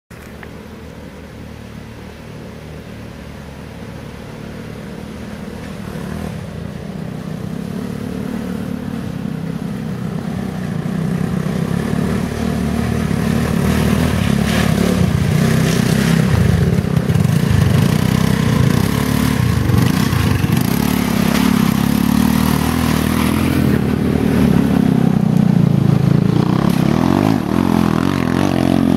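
Off-road buggy's small engine running and revving, growing steadily louder for about the first half as the buggy climbs a muddy trail toward the listener, then staying loud as it passes close, with rattling and clattering from the chassis over the rough ground.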